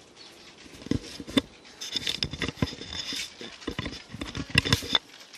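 Footsteps in flip-flops slapping on a concrete driveway: a run of irregular sharp slaps, about two or three a second, cutting off suddenly near the end.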